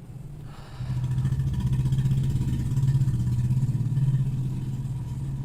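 A motor vehicle engine running close by, its low hum swelling about a second in and fading slowly toward the end.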